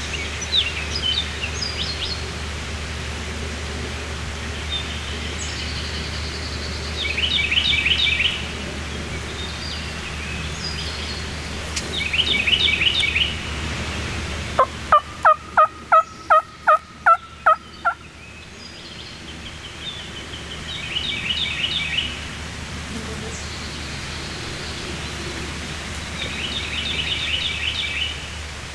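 A wild turkey gobbler gobbling about five times, each gobble a short rattling burst. In the middle comes a louder run of about nine evenly spaced hen-style yelps, a little under three a second.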